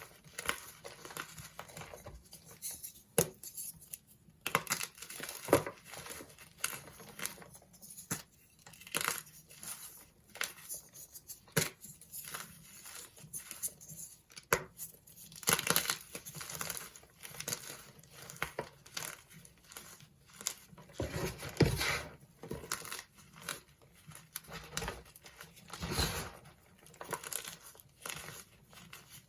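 Dyed gym chalk blocks being crushed and crumbled: a run of irregular dry crunches and crackles, with louder crunches about halfway through and twice more near the end.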